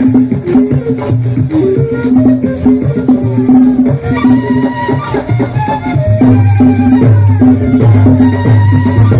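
A porro played live by a Colombian folk ensemble: maracas shaking over a steady drum pulse, with a wind melody of held notes coming in about four seconds in.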